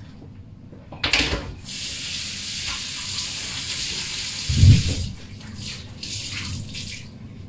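Kitchen tap running into a sink: a splash as the water starts about a second in, a steady rush for about three seconds, then a heavy thump and the water stops.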